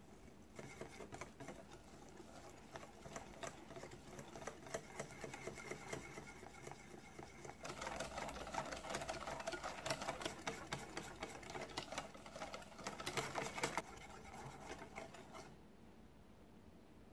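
Wire balloon whisk beating flour into egg-yolk chiffon batter in a glass bowl: rapid clicking and scraping of the wires against the glass. It starts about half a second in, gets louder from about eight seconds to about fourteen, then eases off and stops shortly before the end, once the batter is smooth.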